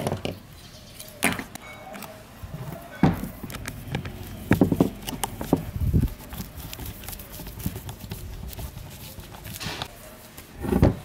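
Irregular knocks and clicks of a plastic fan housing, its switch parts and a metal fan motor being handled and set down on a wooden workbench, with a screwdriver working a switch terminal. The loudest knock comes near the end.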